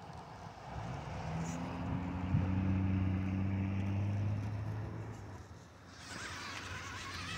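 Electric motor and geared drivetrain of an RC rock crawler humming steadily as it climbs rock. The hum fades about five seconds in, and a rougher hiss follows near the end.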